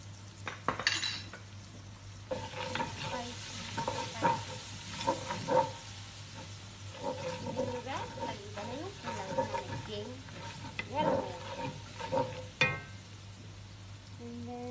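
Wooden spatula stirring and scraping through chopped onion, garlic, tomato and spices frying in oil in a deep pan, with repeated scrapes and clicks against the pan and a sharp knock near the end.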